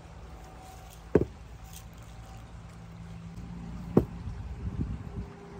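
Glass bowls set down on a cloth-covered wooden table: two sharp knocks about three seconds apart, with a few softer knocks after the second, over a low steady hum.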